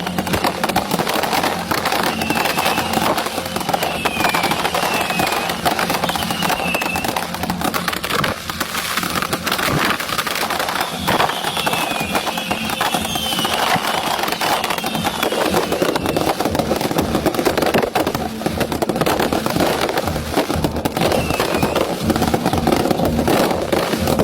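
A fireworks display going off continuously, a dense run of cracks and pops with short falling whistles over it, against a crowd's voices.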